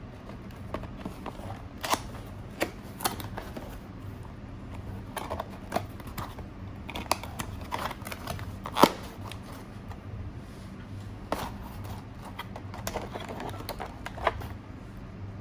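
Irregular clicks and rustles of cardboard and plastic packaging being handled while an HDMI splitter is unboxed, with one sharper click about nine seconds in, over a steady low hum.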